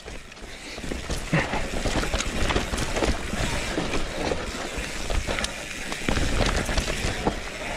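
Mountain bike riding down a rough trail: tyres rolling on dirt with a continual rattle of small knocks and clicks from the bike, and wind rumbling on the camera microphone.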